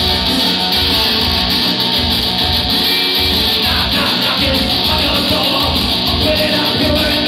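Live rock band playing loud: electric guitar and drums keeping a steady beat, with a man's sung vocal coming in about halfway through.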